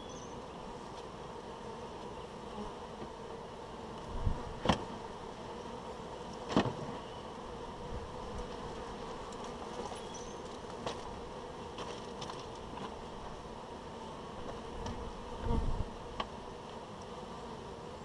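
Honey bees buzzing steadily around a beehive, a continuous even hum. A few sharp knocks and thumps break in, two about four seconds in, one a couple of seconds later and one near the end.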